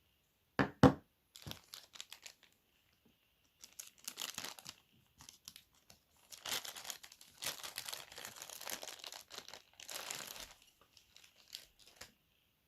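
Handling noise close to the microphone: two sharp clicks just under a second in, then irregular crinkling and scraping rustles that come and go.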